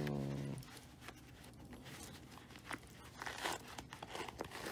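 Crinkling and rustling as a sneaker is handled and its semi-glued orange insole is tugged at, with sharper crinkles about three and a half seconds in and again near the end. A brief low hum at the very start.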